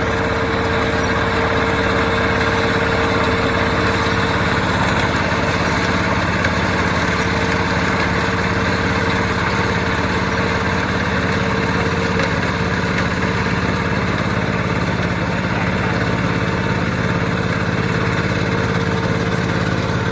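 Mini combine rice harvester's engine running steadily, with a constant whine over the engine note.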